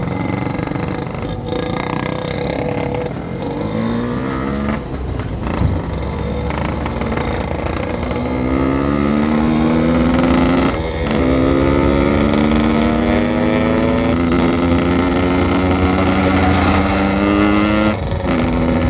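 Yamaha RX-King 135cc two-stroke single-cylinder motorcycle engine under way. It runs at low revs at first, then pulls with a slowly rising pitch, with an upshift about 11 seconds in and another near the end.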